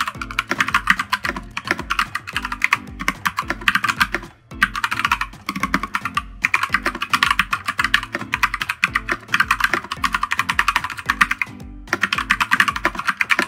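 Fast typing on a Keychron K2 V2 mechanical keyboard with brown switches and PBT keycaps: dense runs of key clacks, with short breaks about four and a half, six and twelve seconds in. A music track with a steady beat plays underneath.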